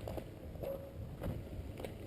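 Footsteps of a hiker walking at a steady pace on a trail, a step about every 0.6 seconds, over a low steady rumble.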